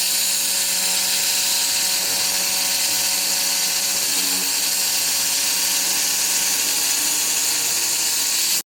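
A JNCT TPW-1500W handheld fiber laser welder running while it welds stainless steel pipe: a steady high hiss over a faint low hum. It cuts off suddenly near the end.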